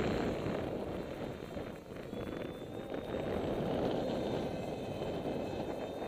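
Strong wind buffeting the microphone: a rough, gusting rumble that swells and dips. A faint high whine from the small electric-prop RC jet's motor sits beneath it.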